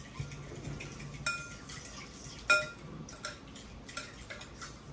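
Metal fork stirring a liquid marinade in a glass bowl, scraping and clinking against the glass. Two sharper clinks with a brief ring come about a second and two and a half seconds in.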